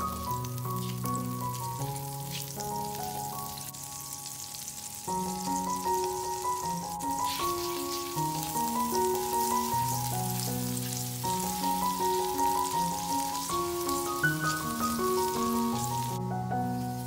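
Butter sizzling as it melts in a hot frying pan, over background instrumental music with a slow melody. The sizzle grows louder about five seconds in and stops abruptly near the end.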